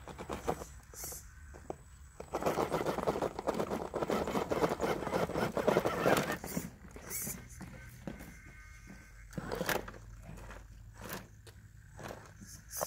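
Tires and chassis of a radio-controlled rock crawler scraping and crunching over rock. There is a dense stretch of grinding from about two to six seconds in, with scattered knocks on either side.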